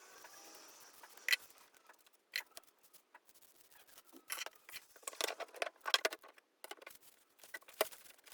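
Keychron K4 mechanical keyboard with factory-lubed Gateron Red linear switches being typed on: a few separate keystrokes at first, then a quick flurry of keystrokes in the middle, and a last few single strokes near the end.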